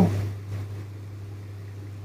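A sleeping woman's soft nasal 'mm' sound falling in pitch, trailing off at the very start, then a faint puffing breath out about half a second in, over a steady low hum.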